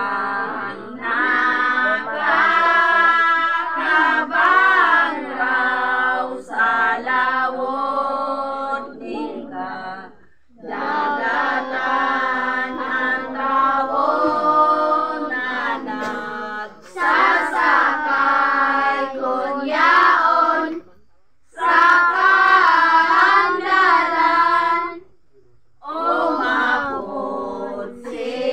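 A group of children and women singing a devotional hymn together, in long phrases with short pauses between them.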